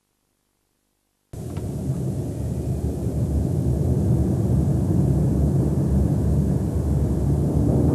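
A deep, steady rumble that starts abruptly out of silence about a second in and carries on without a break.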